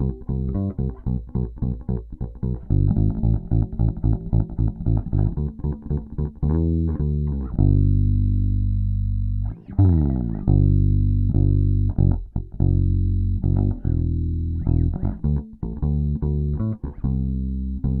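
Epiphone Thunderbird Classic IV electric bass played through its bridge pickup alone, tone control fully open: a run of quick plucked notes, two long ringing low notes about halfway through, then quick notes again.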